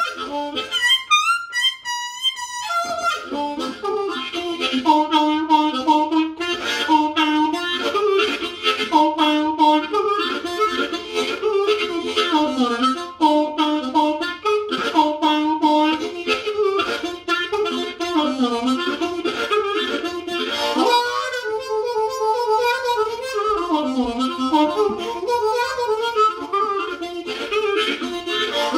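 Seydel 1847 Classic diatonic harmonica in B-flat, in Wilde Rock tuning, played blues-style with the hands cupped around it: rhythmic chords and melody. A few high notes open it, then it settles into lower chords with bent notes that dip in pitch.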